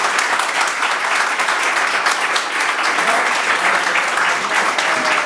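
A roomful of guests applauding steadily, many hands clapping at once.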